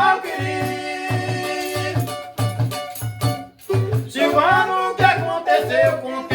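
Samba de roda music: a steady low drum beat under a melody, with rattle-like percussion, and a brief break a little over three seconds in.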